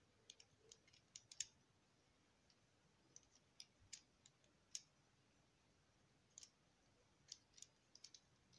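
Faint, irregular clicks of plastic Lego Technic parts being handled and pressed together, coming in small clusters with pauses between.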